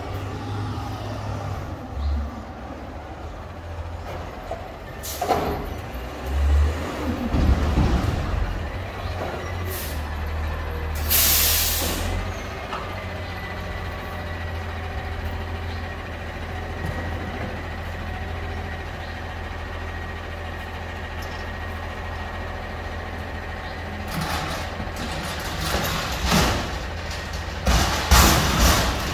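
Garbage truck's engine running with a steady low rumble, and a loud hiss of air-brake air about eleven seconds in. Near the end, a rattling clatter as a loaded steel dumpster is rolled across the pavement toward the truck.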